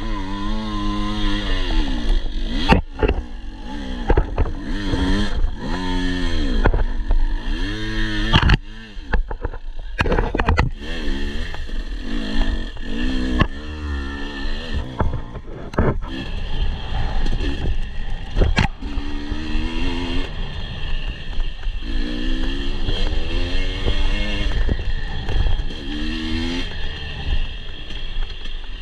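Husqvarna TE 250i two-stroke enduro bike revving up and down again and again on a rough hill climb, with sharp knocks and clatter from the bike over the ground.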